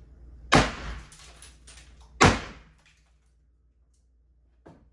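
Two heavy sledgehammer blows smashing into wooden kitchen cabinetry about a second and a half apart, each followed by a short clatter; a faint knock near the end.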